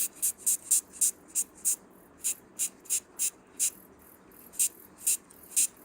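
Ant stridulation: a run of short, high-pitched chirps at an uneven two to four a second, with a brief pause in the middle, over a faint hiss.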